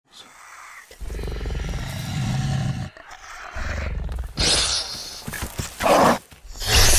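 Sound-designed Austroraptor dinosaur vocalisations: a low rumbling growl from about a second in, then, after a brief pause, several short, louder calls in the second half.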